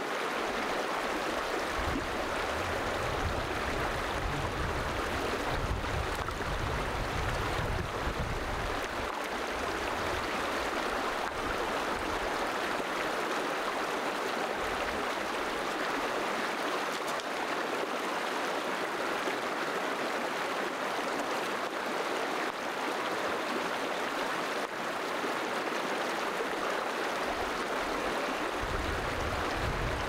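Shallow creek rushing and burbling over rocks, a steady water noise. An intermittent low rumble runs under it for the first several seconds and again near the end.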